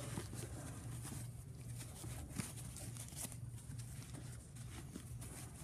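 Handling noise of a packed cargo-parachute deployment bag: canvas and cord rustling and scraping as hands twist up and tighten its tied-off top, with a few light knocks. A steady low hum runs underneath.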